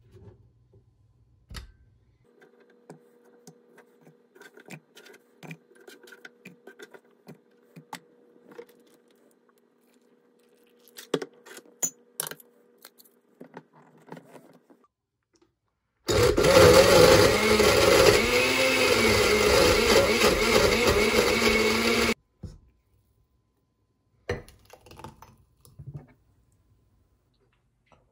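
Glass-jar countertop blender running for about six seconds, blending green juice, then stopping suddenly. Before it come scattered light clicks and knocks as the jar is loaded and its lid pressed on, and a few knocks follow.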